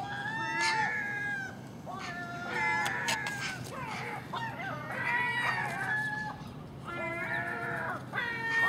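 Common gulls calling noisily, a run of long pitched calls of up to about a second each, several overlapping, with a few sharp clicks about three seconds in.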